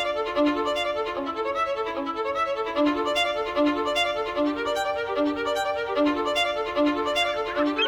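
Background music: a violin playing a steady, evenly paced melody.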